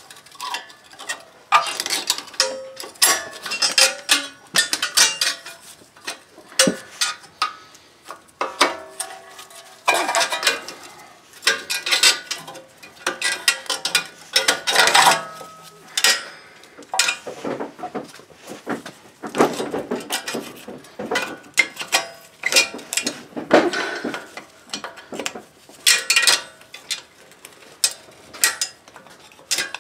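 Metal hand tools, a pry bar and a screwdriver, clinking and scraping against the parking-brake shoes and their return springs on a Jeep Grand Cherokee's rear drum-in-hat brake. Irregular metallic clinks and scrapes come in clusters with short pauses.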